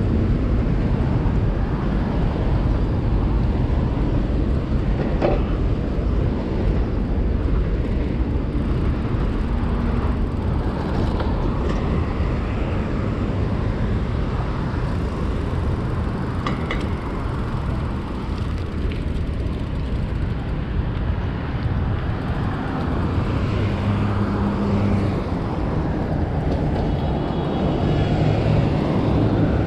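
Steady traffic noise heard from a moving bicycle: a constant low rumble with cars going by and a few short clicks.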